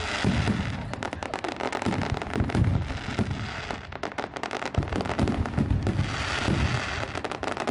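Aerial fireworks bursting overhead, many at once: continuous fast crackling from crackle-effect stars, with repeated low booms.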